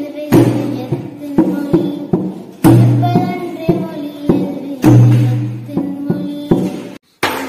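Dholak, a two-headed hand drum, played in a rhythmic pattern: a deep ringing bass stroke about every two seconds, with sharper strokes on the treble head in between. The playing cuts off abruptly near the end.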